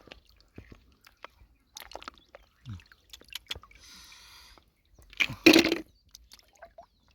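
Shallow lake water sloshing and dripping around hands picking snails and clams, with scattered small clicks and a louder splash about five and a half seconds in.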